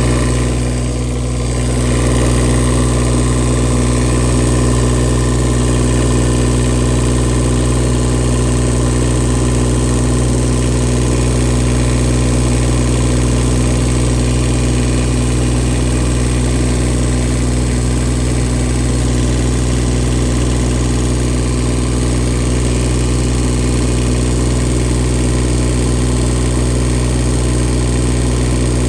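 Bobcat E20 mini excavator's Kubota diesel engine idling steadily while blow-by is checked, running quietly with no knocks or ticks.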